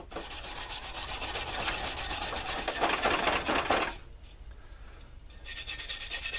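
Old copper wire brush scrubbed rapidly back and forth over the steel blade of a draw knife, lifting rust loosened by a vinegar soak. The scrubbing stops about four seconds in and starts again a second and a half later.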